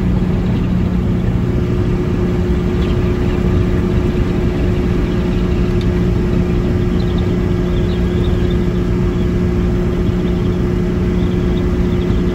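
Car cruising at about 100 km/h, heard from inside the cabin: a steady drone of engine and road noise with a low hum.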